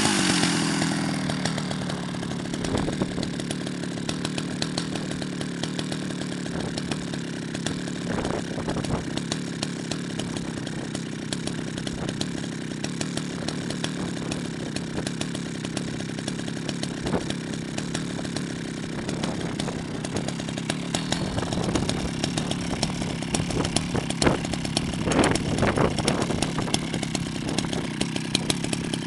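Jonsereds 70E two-stroke chainsaw engine dropping back from a rev to idle in the first second, then idling steadily.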